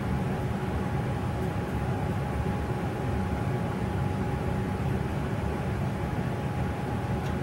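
Steady background hum: a low rumble with a faint, even whine held at one pitch throughout.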